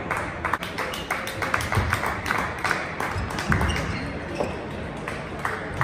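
Table tennis balls clicking off bats and the table in quick, irregular succession during rallies, with a few low thumps among them.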